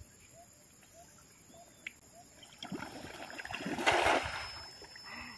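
A cast net thrown out and landing on the reservoir water: a rising rush from about two and a half seconds in, then a loud splash just before four seconds that dies away over about a second.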